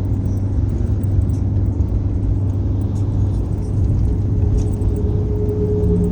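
Steady low rumble of a vehicle on the move, with road and engine noise.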